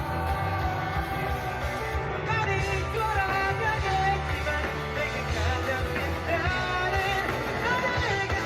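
A male singer performing a pop-rock song live, his sung melody over backing music with a strong bass.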